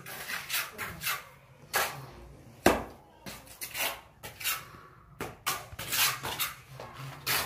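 Irregular scrapes, rubs and knocks of hands working in rubble and handling plastic electrical conduit on a concrete floor, with one sharp knock about two and a half seconds in.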